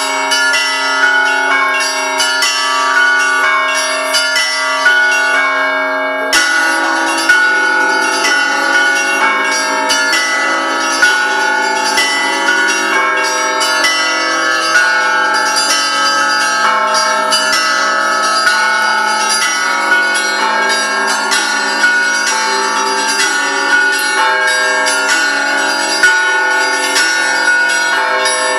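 Russian Orthodox church bells rung in a continuous, busy peal: small bells struck rapidly in a rhythmic pattern over sustained ringing from larger bells. About six seconds in the pattern shifts and a deeper bell joins.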